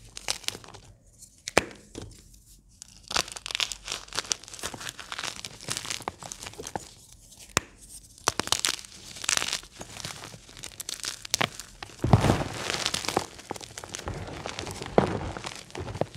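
Blocks and chunks of gym chalk crunching and crumbling between the fingers, with crumbs and pieces dropping back onto a pile of chalk. Dense crackling with brief lulls near the start and in the middle, busiest in the last few seconds.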